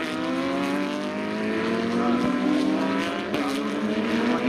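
Several Porsche 911 GT3 Cup race cars' 3.8-litre flat-six engines accelerating, their pitch climbing steadily, with a brief break a little over three seconds in.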